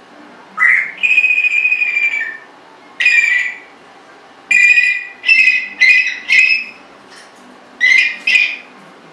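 Congo African grey parrot whistling: a short rising note, a long held whistle, then about seven shorter whistled notes, several in quick succession.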